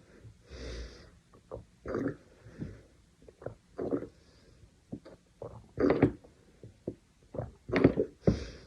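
A person gulping down water and burping: a string of short, loud swallowing and burping sounds at uneven intervals, with audible breaths between them.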